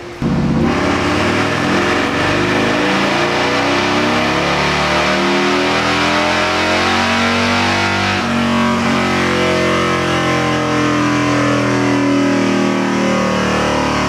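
Harley-Davidson Road Glide's Milwaukee-Eight V-twin, built out to 128 cubic inches, making a full-throttle pull on a chassis dyno: it comes in suddenly and climbs steadily in pitch, drops suddenly about eight seconds in, then climbs again.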